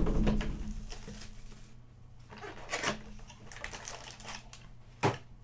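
A cardboard trading-card hobby box being opened and handled by hand: a thump as it is pulled open, then scraping and rustling of cardboard and a wrapped pack being lifted out, with a short sharp click near the end.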